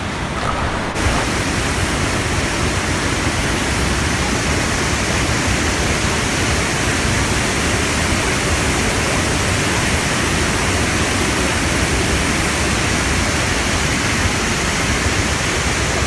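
Waterfall and white-water rapids rushing steadily, an even hiss of falling water. About a second in it steps up a little louder and brighter.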